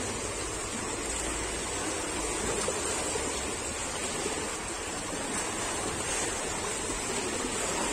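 Steady splashing and churning of pool water from several swimmers kicking and stroking freestyle.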